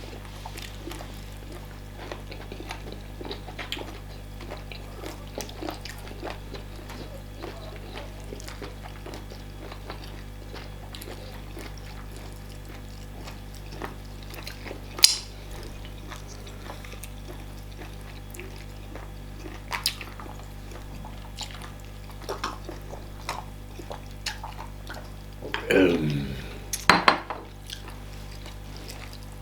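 Fufu and banga soup being eaten from bowls: scattered small clinks and clicks of dishes and cutlery with wet soup sounds, one sharper clink about halfway through, and a brief voice-like sound a few seconds before the end, over a steady low hum.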